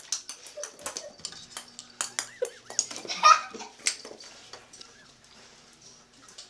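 A Christmas ornament clattering and skittering across a tile floor as a Pekingese puppy chases and paws at it, a rapid run of light clinks and knocks. The clatter is loudest a little after three seconds in, then thins out to a few soft ticks.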